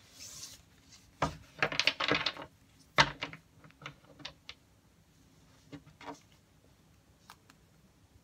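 Tarot cards being shuffled by hand: a burst of rapid card flicking about two seconds in and a sharp clack soon after, then scattered lighter taps and clicks as the deck is handled.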